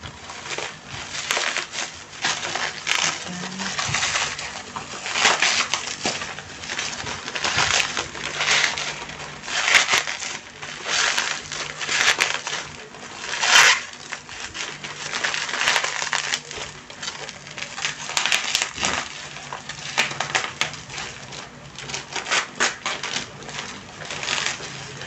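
Bubble-wrap packaging being handled and pulled open, an irregular run of crinkling and crackling with one louder crackle about halfway through.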